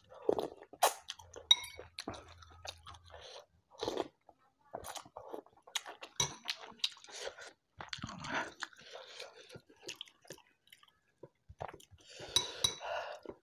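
A person chewing a mouthful of rice and spicy balado shrimp close to the microphone, with irregular wet smacks and crunches.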